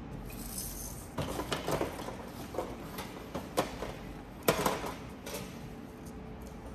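A scattering of light clicks and knocks as small plastic craft items are handled and set down on a metal tabletop. They start about a second in, and the loudest knock comes about four and a half seconds in.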